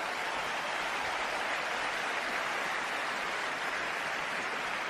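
Audience applauding steadily after a line in a speech.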